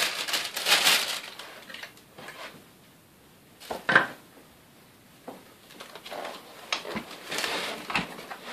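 Unpacking noise: packaging rustling and plastic vacuum-cleaner parts being handled and knocking together. A loud rustle comes at the start, then scattered clicks, with one sharp knock about four seconds in.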